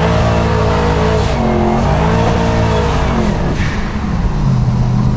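Twin-turbo 388 cubic inch LS V8 of a 1965 Chevelle, driving, with the engine note rising and dipping several times as the revs change. It settles into a steady, lower drone near the end.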